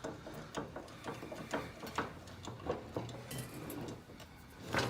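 Light, irregular metallic clicks and taps of an old J H Williams wrench being worked by hand, its rusted adjusting threads seized and barely moving.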